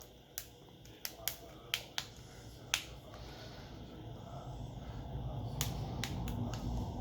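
Sharp little clicks of plastic and small tools as the phone's plastic mid-frame is worked loose, several in quick succession and then a few more near the end, over a low rumble that swells from about halfway through.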